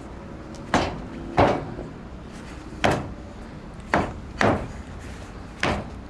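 Six sharp stamps of a martial artist's feet on a wooden deck during a Xingyiquan animal form. The stamps are unevenly spaced, and the second is the loudest.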